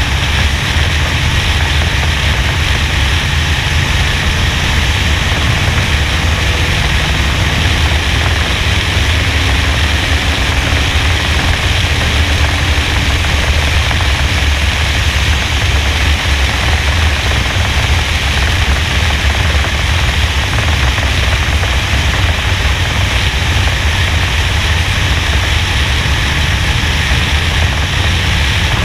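NASCAR stock car at racing speed heard from a roof-mounted GoPro: a steady, loud wind rush and low drone. The engine's throttle lifts and reapplications are buried in it and hard to make out.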